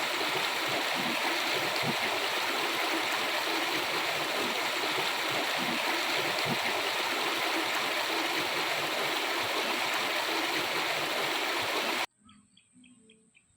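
Rushing water of a river, a steady loud rush that cuts off suddenly near the end, leaving faint bird chirps.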